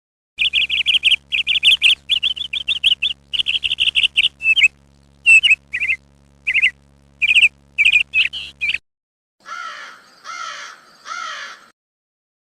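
A bird chirping in many quick, high trilled bursts for about eight seconds, followed by three lower, harsher squawking calls near the end.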